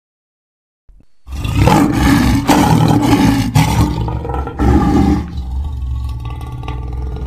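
Lion roaring, starting about a second in with deep, rough roars that are loudest for about four seconds, then carrying on more quietly.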